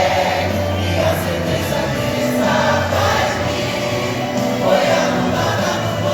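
A church choir of worshippers singing a gospel hymn together, with music accompanying them.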